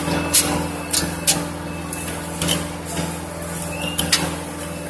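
Lattice-boom crane's engine running steadily under load-lifting work, with a few sharp knocks and clinks scattered through, and a brief squeak about four seconds in.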